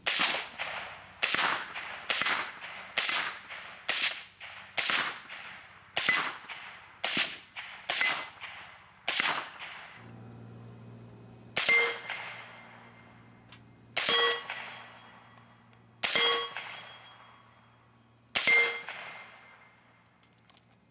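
Suppressed .300 Blackout AR-15 firing: ten shots about a second apart, then four more spaced about two seconds apart. Each shot is followed by the ring of a hit steel plate.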